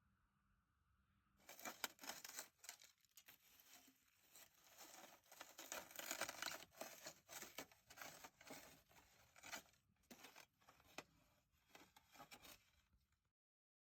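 Packaging being crinkled and torn open, in irregular crackling bursts full of sharp clicks that stop abruptly near the end.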